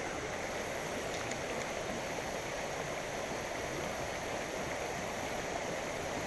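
Creek water rushing steadily over a rocky riffle below a spillway.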